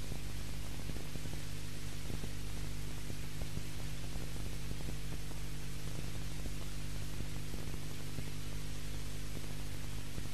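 Steady electrical mains hum with an even hiss over it, the background noise of a VHS recording of a TV broadcast; no other sound stands out.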